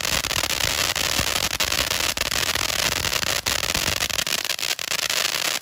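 Golden Triangle firework fountain spraying sparks: a steady, loud hiss with many sharp crackles through it.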